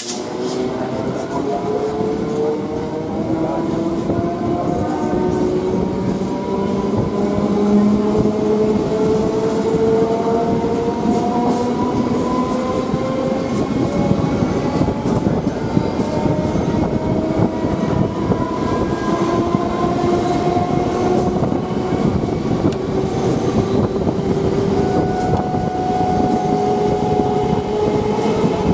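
Electric multiple-unit local train gathering speed: its traction motors whine in several tones that climb slowly and steadily in pitch, over the rumble of the wheels and a clatter of rail joints.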